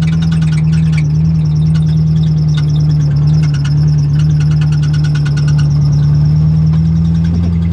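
V8 engine of a Mazda RX-7 FC running steadily at low revs while the car is driven slowly, with rapid light ticking over the drone. The engine has fried its piston rings and is smoking.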